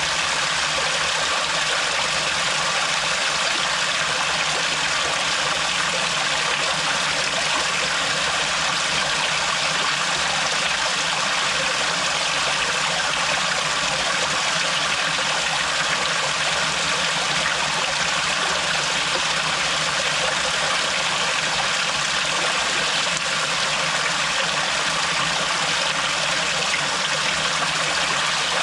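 Water from a thin, dripping canyon waterfall splashing down as a steady, even rush, with no single drops standing out.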